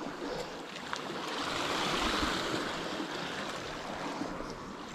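Sea waves washing on the shore: a steady wash that swells up about a second and a half in and then eases off.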